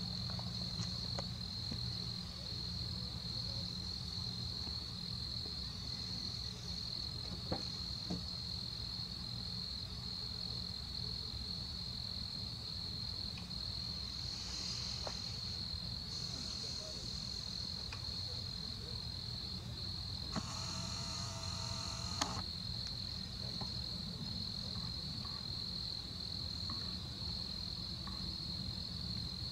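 Crickets chirring in a steady, high-pitched trill, over a low steady hum.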